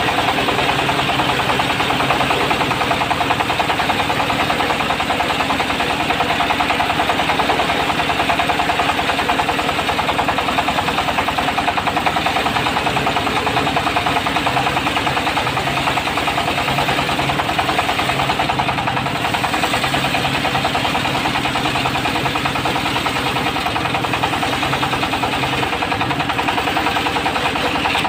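Diesel engine of a mobile circular sawmill running steadily with a rapid, even knocking beat, driving the saw blade.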